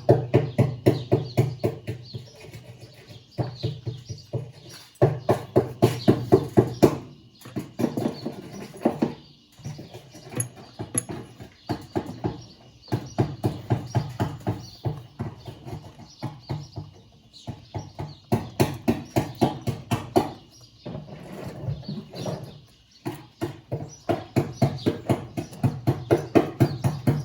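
Bursts of rapid repeated knocking, several strokes a second, over a low hum. The bursts stop and start every second or two.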